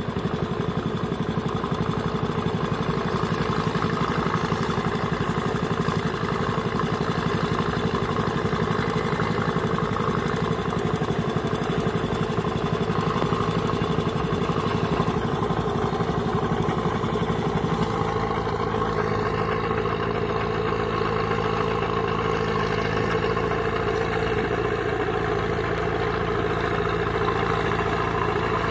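Engine of a small tracked tractor running steadily as it tills a flooded paddy field with a rotavator.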